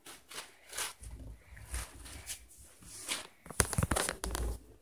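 Bubble wrap and a bath mat being handled, crinkling and rustling, with a quick run of sharp pops from the bubble wrap a little over halfway through.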